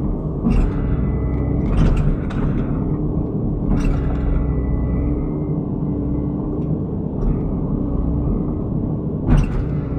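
Diesel excavator engine running steadily under load, with several sharp knocks and clanks from the machine at work, the loudest near the end.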